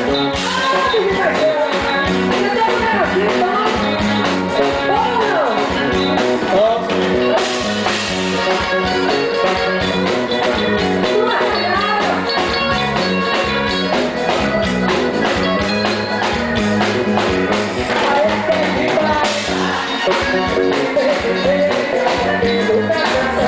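Live forró music from a band, with a steady quick beat.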